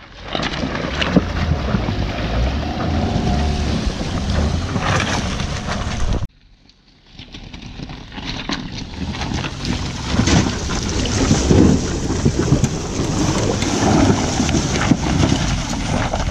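Torrential rain with wind buffeting the microphone, a dense rushing roar with a low rumble. About six seconds in it cuts off abruptly and builds back up over a second or two.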